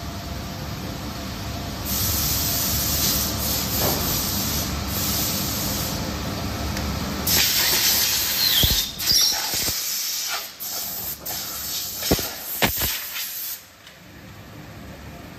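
Silicone compression-moulding press running with a low hum as its mould opens, under long bursts of compressed-air hiss that stop near the end. A few sharp metallic clicks come in the second half.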